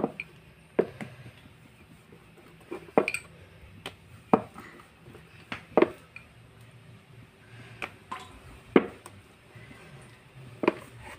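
Wooden rolling pin rolling out puri dough on a round board, with sharp knocks and clacks at irregular intervals, roughly once a second, as the pin and hands strike the board.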